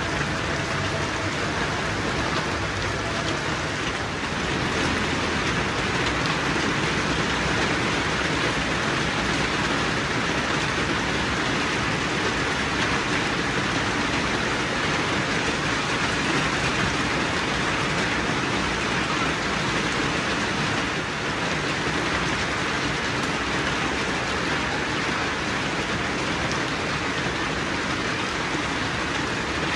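Steady rain falling: an even, unbroken hiss with no single drops or knocks standing out.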